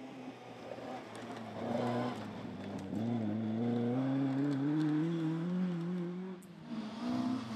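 Historic rally car engine accelerating hard through the gears: the note rises, drops at a gear change about three seconds in, then climbs steadily again before stopping suddenly about six and a half seconds in, when another engine is heard.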